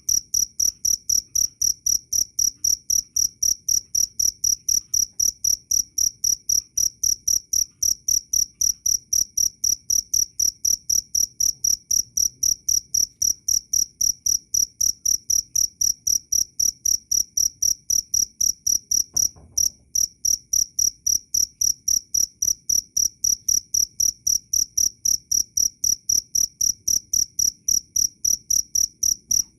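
Cricket singing loudly: a high-pitched chirp repeated evenly, about three to four chirps a second, with one brief break about two-thirds of the way through.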